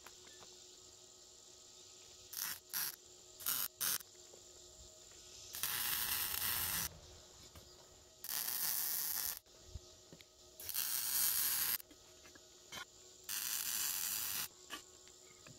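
Wire-feed welder striking an arc on steel tube: four very short tack welds a couple of seconds in, then four longer welds of about a second each, each a steady hiss that starts and stops sharply.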